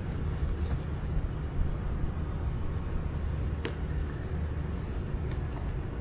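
Steady low outdoor rumble, with one sharp click a little past halfway.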